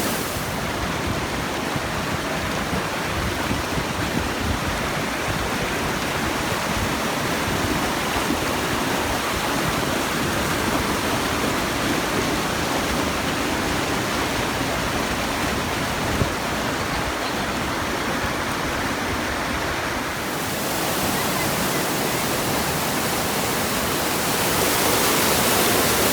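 Kalandula Falls, a large waterfall on the Lucala River, giving off a steady, unbroken rush of falling water. The sound turns brighter and hissier about two-thirds of the way through.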